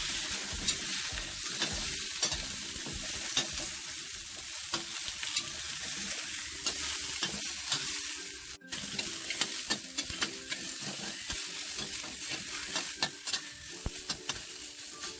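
Ginger, shallots and garlic sizzling in hot oil in a pan with browned chicken drumsticks, being stir-fried until fragrant, with many sharp clicks and scrapes of the spatula against the pan. The sizzle breaks off for an instant a little over halfway, then carries on.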